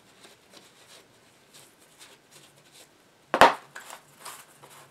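Faint wiping and handling noises as an old radio tube socket is cleaned with a paper towel, then one sharp knock about three and a half seconds in as the socket is set down on the bench.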